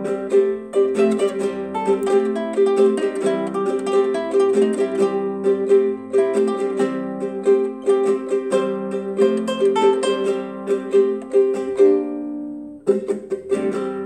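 Guitalele strummed in a steady rhythm as an instrumental break with no singing. Near the end one chord is left to ring and die away for about a second before the strumming starts again.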